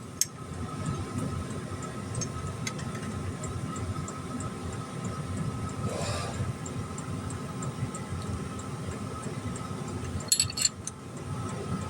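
Steady mechanical hum with a constant whine, and a few light metallic clinks about ten seconds in.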